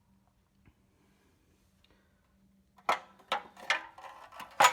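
Sheet-metal body panels being handled: near quiet with a faint steady hum, then from about three seconds in a run of sharp clanks and rattles, the loudest near the end ringing briefly.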